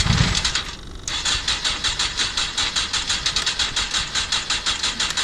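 Yamaha FZS600 inline-four engine being turned over on its electric starter with an even, rapid beat of compression pulses and not firing. A short burst, a break about half a second in, then it cranks again. The engine is running out of fuel: the filter in the fuel pump turns out to be empty.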